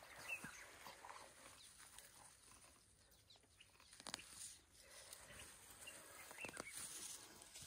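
Faint rustling and a few short, sharp clicks as an elephant calf's trunk reaches through a wooden pole fence and works at the grass on the other side.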